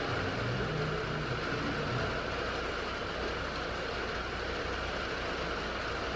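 Steady hiss of rain falling on the barn roof, heard from inside the barn, with a low hum underneath.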